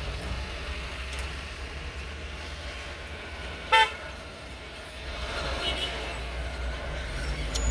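One short car horn toot about halfway through, heard from inside a car cabin over a steady low engine and road rumble.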